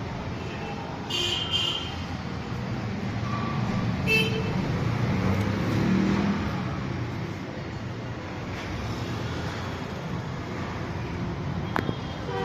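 Steady road traffic noise with short horn toots about a second in and again about four seconds in, and a sharp click near the end.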